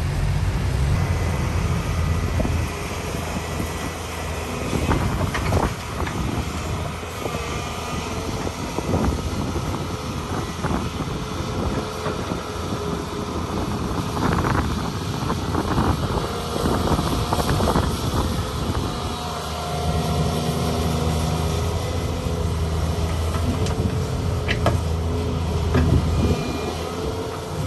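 Volvo excavator's diesel engine working, its note growing heavier at the start and again from about twenty seconds in, with scattered knocks and clunks in between.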